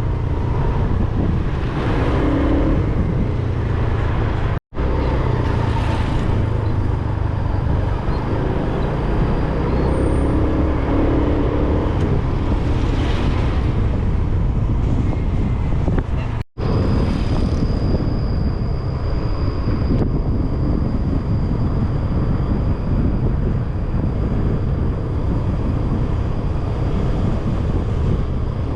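Steady wind buffeting and road noise of a moving scooter, with surrounding traffic. The sound cuts out completely for a moment twice, about five seconds in and again about sixteen seconds in.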